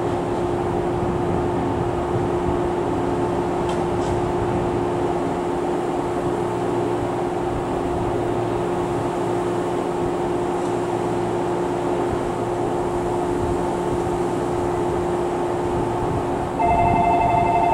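Steady electrical hum of a standing Shinano Railway 115 series electric train, with a constant low tone. About a second before the end, a chime of several steady tones starts over it.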